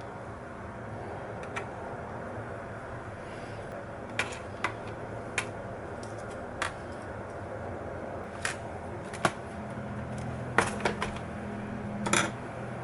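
Sharp clicks and taps, about a dozen at irregular intervals, with a short clatter near the end, over a steady low hum: small hard plastic and metal parts and tools being handled while working on a laptop.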